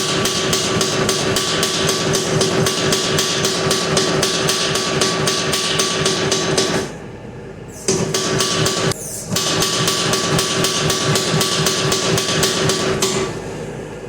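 Mini power hammer, fitted with new mild-steel drawing dies, striking hot steel in rapid, even blows of about five a second while an axe head is forged out. A steady motor hum runs with it. The hammer runs in three bursts: it stops for about a second roughly halfway through, again briefly a second or so later, and quits near the end.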